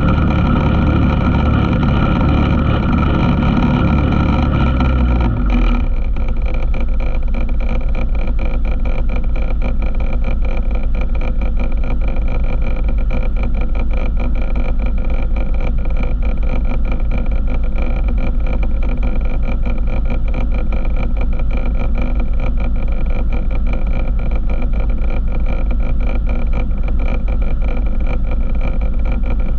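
ATV engine running steadily under way on a trail ride. The engine note shifts about five seconds in and then holds steady with a fast, even pulsing.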